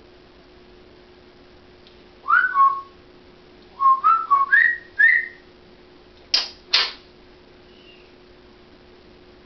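African grey parrot whistling: two short notes about two seconds in, then a quick run of about five notes climbing in pitch, followed by two short, sharp rising chirps a half-second apart. A faint steady hum sits underneath.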